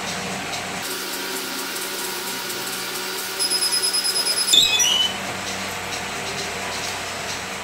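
A clamshell T-shirt heat press's timer alarm beeps rapidly for about a second. The press is then released and opened with a short squeak and clunk. A steady hum runs underneath throughout.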